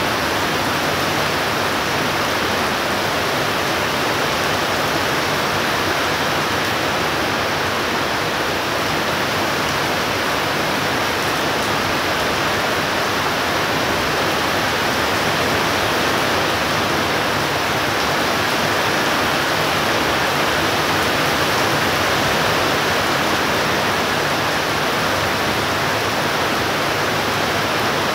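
Torrential thunderstorm rain pouring down in a loud, steady hiss.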